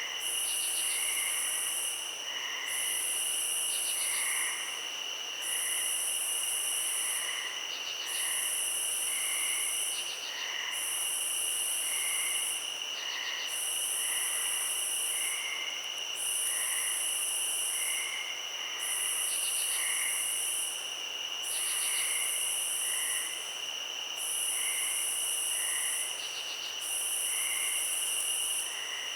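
Night insect chorus. A loud, very high buzz comes in pulses about two seconds long with short breaks, over two steady, shrill cricket-like trills. Short runs of rapid ticks come every few seconds, and soft lower chirps repeat about twice a second.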